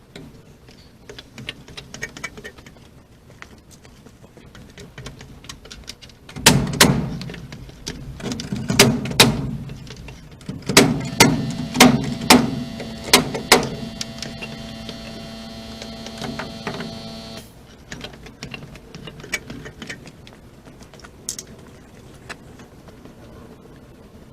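Sharp knocks on wood like hammer blows, first a few scattered ones, then a run of about six strong blows; then a small power tool's motor runs steadily for about four seconds and cuts off suddenly.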